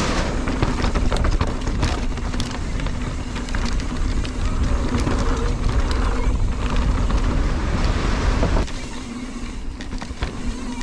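Wind buffeting the camera microphone over the rumble and rattle of a mountain bike riding a wooden boardwalk and dirt trail, with many sharp clicks and knocks. The low rumble drops off abruptly about two seconds before the end.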